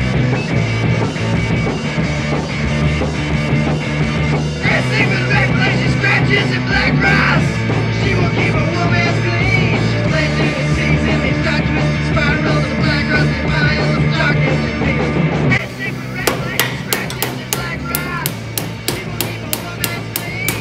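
Loud punk-style rock music with a steady beat. About three-quarters of the way through, the music thins and a rapid run of sharp knocks, about three or four a second, joins it.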